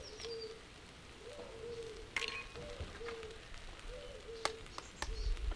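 A pigeon cooing in repeated low phrases, with a higher bird chirping briefly at the start. A few sharp taps cut through, eggs being cracked on the rim of a bowl, the loudest a little after halfway.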